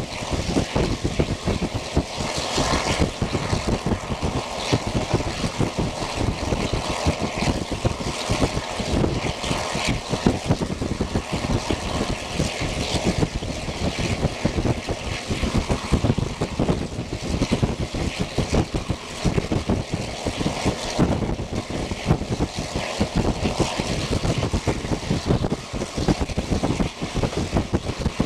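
Wind rushing and buffeting the microphone at the open window of a moving Taiwan Railways old-type passenger coach, steady throughout, over the noise of the train running.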